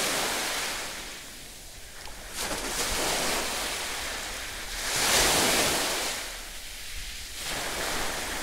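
Sea waves washing onto a beach, the surf swelling and fading every two or three seconds and loudest about five seconds in.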